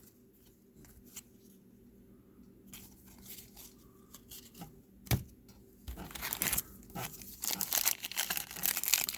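A trading-card pack wrapper being torn open and crinkled by hand: quiet at first, then scattered rustles and a sharp tap about five seconds in, and denser, louder crinkling over the last few seconds.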